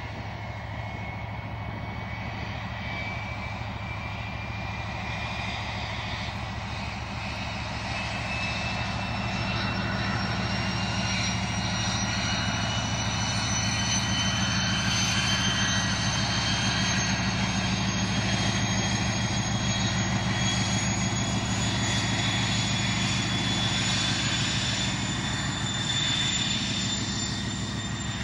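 Class 56 diesel locomotive passing under power with a coal train: a steady low engine drone with a whine that rises slowly in pitch throughout, growing louder to a peak about halfway through and easing a little near the end.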